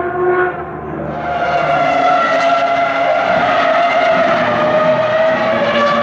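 Single-seater racing car engine running at high revs, a strong pitched note with many harmonics that drifts slightly lower near the end. A different engine note is heard briefly at the start before it.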